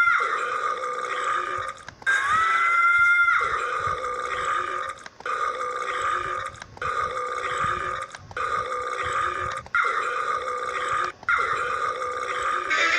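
A run of repeated burps, about eight in a row, one roughly every one and a half seconds, each stopping abruptly before the next.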